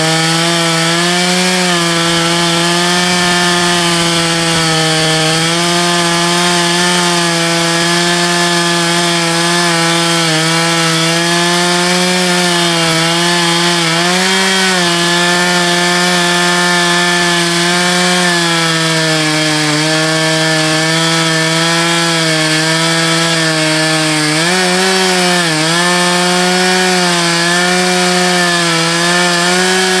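Two-stroke chainsaw running at high throttle in an Alaskan-style chainsaw mill, ripping lengthwise through a log to cut a plank. The engine note holds steady, its pitch dipping briefly a few times, twice in quick succession a few seconds before the end.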